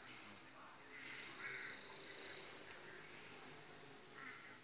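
A steady chorus of insects buzzing at a high pitch with a fast pulsing texture, growing louder about a second in.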